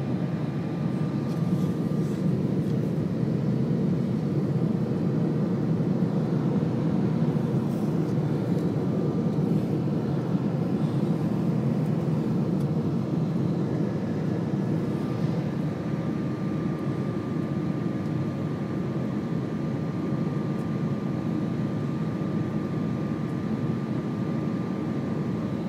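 Airliner cabin noise during climb-out: a steady low roar of the jet engines and rushing air heard from a seat by the wing, with a faint thin whine that comes and goes over it.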